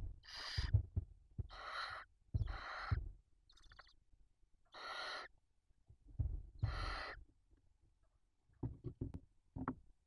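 Barn owls hissing: five harsh hisses, each under a second long, with soft low thumps of movement under them. A few faint clicks follow near the end.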